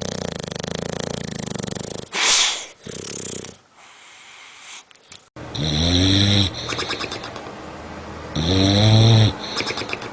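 Dogs snoring, across two clips. First comes a rough, fluttering snore and two short sharp breaths. After a cut, two loud squeaky snores rise in pitch, about three seconds apart.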